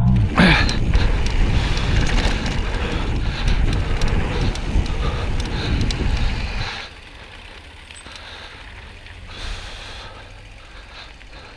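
Mountain bike rolling fast down a gravel and dirt trail: tyres crunching over loose stones, the bike rattling and wind buffeting the action camera's microphone. About seven seconds in it drops suddenly to a quieter, steady rolling rumble.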